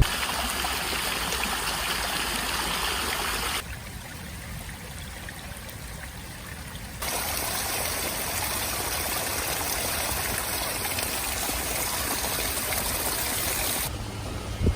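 Stream water flowing as a steady rushing, in spliced stretches that cut in and out abruptly, with a quieter, duller stretch from about four to seven seconds in.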